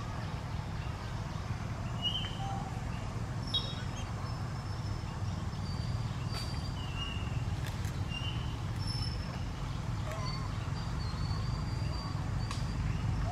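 Outdoor ambience: a steady low rumble with scattered short, high chirps and a few faint ticks.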